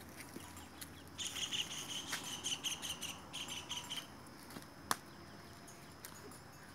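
High, rapid pulsing chirps that start about a second in and stop about three seconds later, with a single sharp click near the five-second mark.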